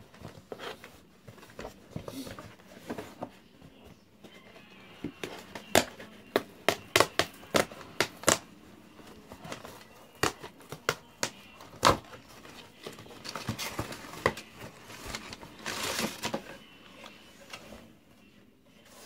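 A cardboard mailing box being opened by hand: a run of sharp clicks and knocks from the cardboard and flaps in the middle, then paper packing crinkling near the end.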